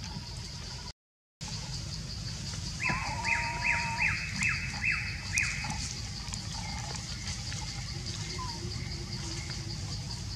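A bird calls a run of about seven quick falling notes, over a steady high insect drone in forest. The sound cuts out briefly about a second in.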